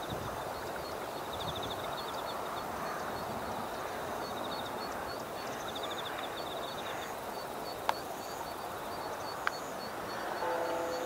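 Rural field ambience: a zitting cisticola giving a steady run of sharp high 'zit' calls, about two or three a second, over insects chirring in short buzzy bursts and a steady low rumble. Two sharp clicks come in the second half, and a short low call near the end.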